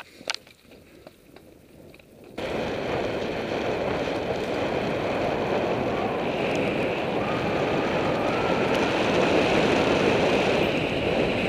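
Mountain bike on a dirt singletrack heard from its on-board camera: a few sharp clicks and rattles, then, a little over two seconds in, a sudden loud steady rushing of wind on the camera and tyres rolling over the trail.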